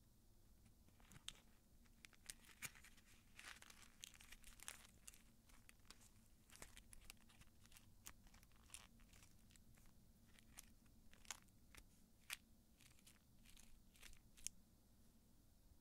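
Aluminium foil crinkling and crackling as it is folded and pinched around fingertips over cotton pads for gel polish removal: a faint, irregular run of sharp crackles that stops shortly before the end.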